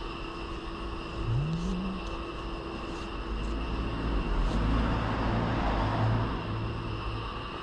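Toyota Estima minivan running, with a short rising whine about a second in and then a steady low drone.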